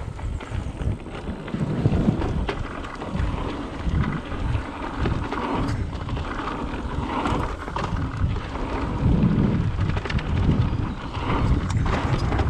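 A mountain bike ridden fast down a dirt flow trail: wind buffets the microphone in uneven gusts, and the bike rattles and knocks over the bumps.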